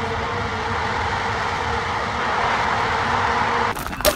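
Steady road and engine noise inside a moving car's cabin, with a faint steady hum. It cuts off abruptly near the end, and a couple of sharp clicks follow.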